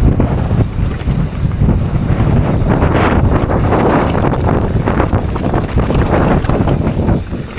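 Wind buffeting the microphone of a camera on a downhill mountain bike, a loud, uneven rumble that surges and eases, easing slightly near the end.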